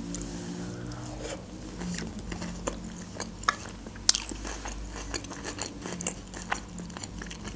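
Close-miked chewing of a mouthful of Caesar salad, with short, irregular crisp clicks and crunches as it is chewed.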